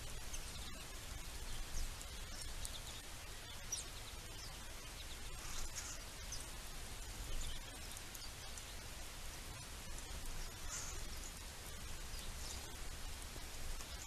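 Outdoor ambience at busy bird feeders: scattered short, high-pitched bird chips and calls over a steady low hum.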